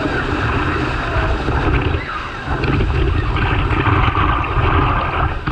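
Loud rushing, churning water from a big surge of foaming water welling up in a crowded bathing pool. It dips briefly about two seconds in, then comes back louder.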